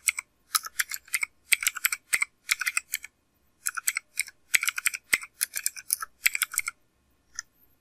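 Typing on a computer keyboard: quick runs of key clicks, with a short pause about three seconds in, stopping about a second before the end.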